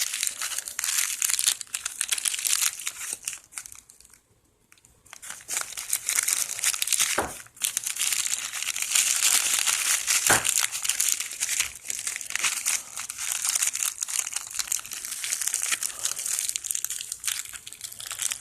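Plastic packaging crinkling and rustling as battery terminals are unwrapped by hand, with a short pause about four seconds in and a couple of light knocks later on.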